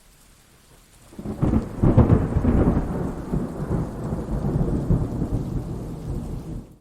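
Thunderstorm sound effect: faint rain hiss, then about a second in a loud crack of thunder that rolls on as a long rumble for several seconds before cutting off abruptly.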